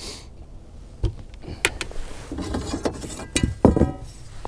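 A few sharp knocks and some rattling clatter from fishing gear being handled in a boat: a plastic bucket and its wire handle, and a measuring board being set down, with the loudest knocks just past the middle.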